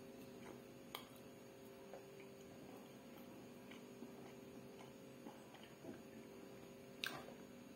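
Near silence: faint steady room hum with a few soft clicks, the clearest about a second in and near the end.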